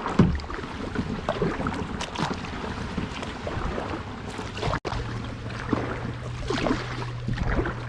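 Kayak paddle strokes, the blade dipping and splashing irregularly with water dripping off it, over wind noise on the microphone.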